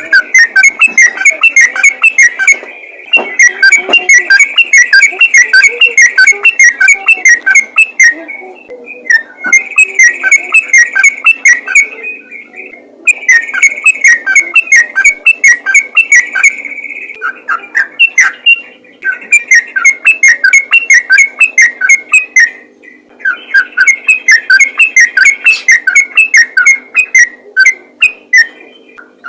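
Yellow-vented bulbul (trucukan) singing rapid, chattering song in long runs of quick whistled notes, with short pauses between the runs.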